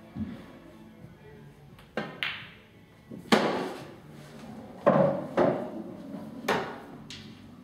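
A pool shot: a faint knock as the cue strikes the ball near the start, and two quick knocks about two seconds in as balls meet and a ball drops. These are followed by four louder sharp knocks with a short echo.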